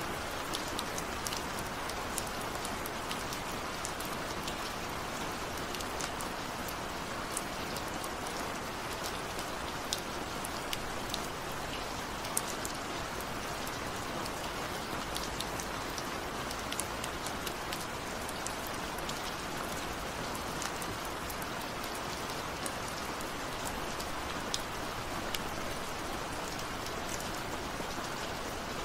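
Steady rain, a continuous even hiss with scattered sharp ticks of single drops.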